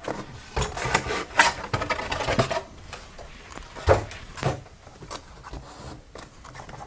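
Plain cardboard box being handled and opened: irregular rubbing and scraping of cardboard with scattered light knocks.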